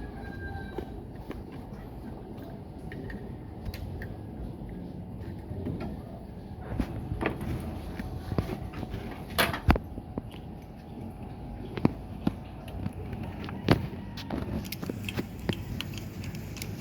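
Scattered clicks, clinks and knocks of hand tools and metal parts being handled, a few of them sharper and louder near the middle and later on, over a steady low background rumble.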